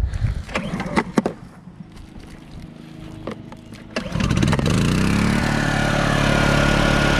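A few handling knocks and clicks, then a small portable inverter generator is pull-started about four seconds in: its engine catches, rises in pitch briefly and settles into a steady run.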